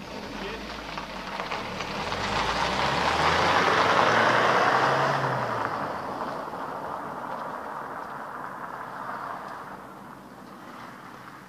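A road vehicle driving past: engine and tyre noise builds to a peak about four seconds in, then fades slowly as it moves away.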